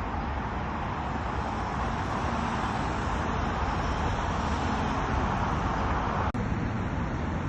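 Steady city street traffic noise, swelling a little over a few seconds and briefly cutting out about six seconds in.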